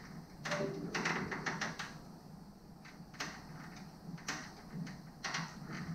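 Small clicks and rustles of stranded wires and a plastic twist-on wire connector being worked by hand, as the connector is twisted onto a bundle of wires. A busy patch comes in the first two seconds, then single short bursts about three, four and five seconds in.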